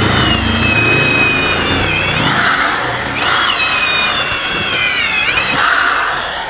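Oshima corded impact drill running at speed in plain rotary (non-hammer) mode, boring a large wood bit into a log. The motor whine drops in pitch as the bit bites and bogs it, then climbs back, twice.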